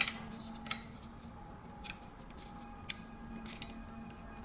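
Scattered light metallic clicks and taps of trolley parts being handled and fitted together, over a faint steady hum.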